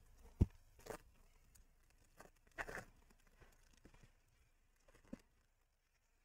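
Faint handling noises while the replacement screen is unpacked: a light knock, then a brief rustle of packaging, and a small click near the end.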